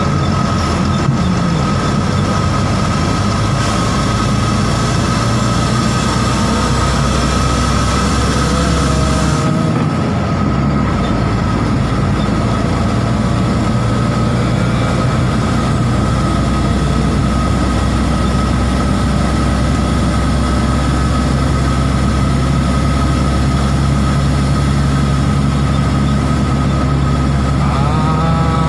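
Trailer truck's diesel engine droning steadily on the road, with a steady high whine above it. The low drone briefly drops out about ten seconds in, then returns.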